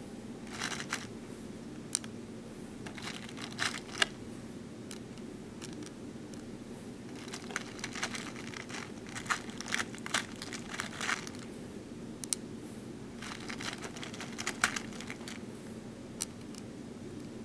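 Small BeadOs beads clicking and rattling as fingers pick them out of a plastic compartment tray and press them onto a plastic pegboard, in scattered clusters of light clicks and rustles. A steady low hum runs underneath.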